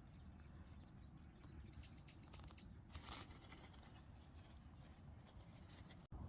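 A small bird chirping faintly: four quick, high, falling notes about two seconds in. A brief rustle follows around three seconds, over an otherwise near-quiet outdoor background.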